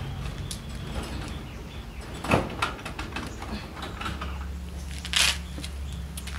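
Scattered light knocks, clicks and a brief scrape from handling a wire cat cage while fitting a plastic water dispenser, the sharpest knock about two and a half seconds in, over a low steady hum.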